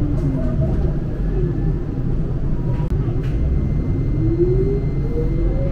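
Tram running with a steady low rumble, its traction motor whine falling in pitch at the start and rising again from a little after halfway, as the tram slows and then picks up speed.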